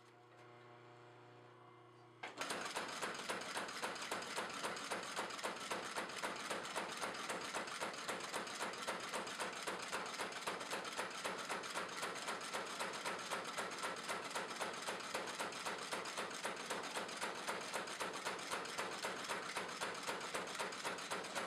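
Homemade wooden beam-style power hammer pounding in a rapid, steady rhythm of repeated blows. It starts abruptly about two seconds in, after a brief low hum.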